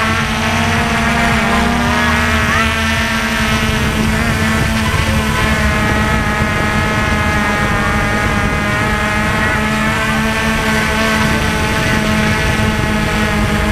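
V303 quadcopter drone's motors and propellers whining steadily while it hovers, heard close up from its own onboard camera, a stack of tones that shift slightly in pitch as the motors adjust.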